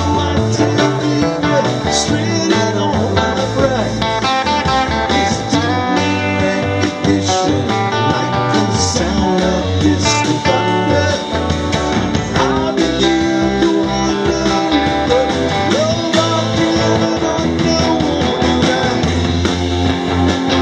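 Live rock band playing steadily with electric and acoustic guitars, drums and keyboard, the guitars to the fore.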